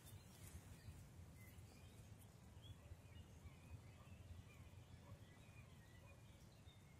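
Faint woodland ambience: distant birds giving short, scattered chirps and calls over a low, steady rumble.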